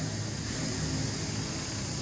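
A vehicle engine running steadily as a low hum, under a hiss of outdoor background noise.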